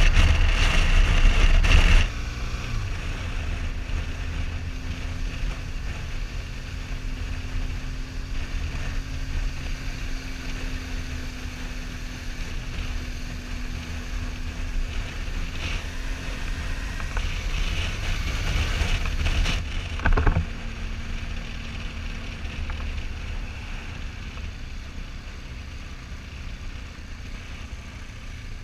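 Motorcycle riding along a road, heard from a camera mounted on the bike: engine running under steady wind noise on the microphone. The sound changes abruptly about two seconds in and again about twenty seconds in.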